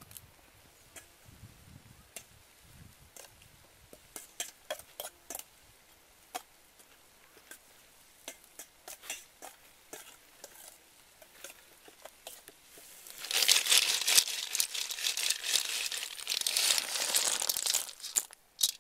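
Scattered light clicks and taps of hand work, then about 13 seconds in a dense, loud clatter lasting about five seconds as cooked snails in their shells are tipped from a metal wok onto a woven bamboo tray.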